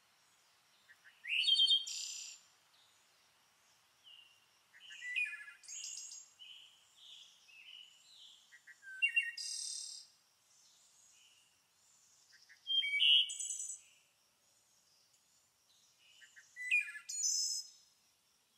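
Birds chirping and singing in short bursts of chirps and trills, about every three to four seconds, with quiet between them.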